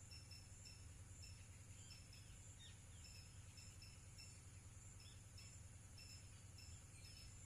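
Faint outdoor nature ambience: short high chirps repeating in quick runs over a steady high hiss and a low rumble, with a few brief falling calls a few seconds in.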